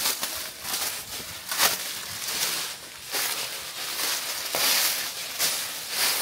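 Footsteps crunching over dry forest-floor litter at a steady walking pace, about one step every half to three-quarters of a second.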